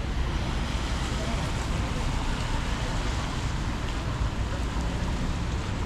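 Steady wet-street city noise: a continuous wash of traffic and rain with a low rumble, and faint voices of passers-by.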